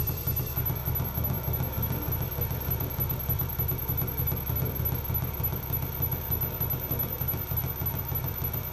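Live electronic noise music from a tabletop rig of mixer and electronic devices: a dense, rapidly fluttering low drone with a thin hiss above it, the hiss dropping back about half a second in.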